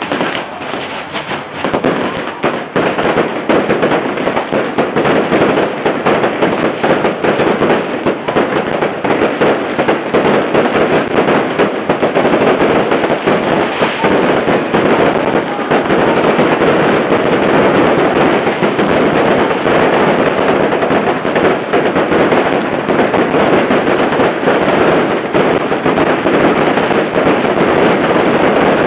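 Firecrackers and fireworks of a fire lion going off in a dense, unbroken barrage of rapid bangs and crackles. It builds over the first few seconds, then holds steady and loud.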